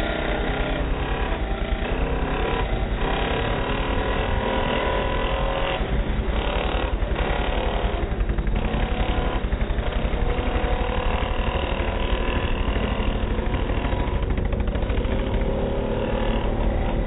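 Several small scooter engines running together as they ride along, their engine note wavering up and down and climbing near the end. A steady low rumble, wind on the microphone of a moving scooter, lies beneath.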